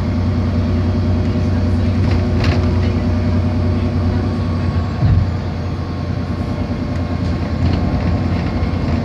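Interior running noise of an Alexander Dennis Enviro400 double-decker bus on the move: a steady low drive hum with road noise, heard from inside the cabin. A single low thump of a bump comes about five seconds in.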